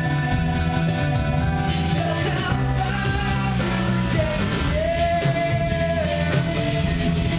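Live rock band playing, electric guitars over bass and drums, with a voice singing long held notes.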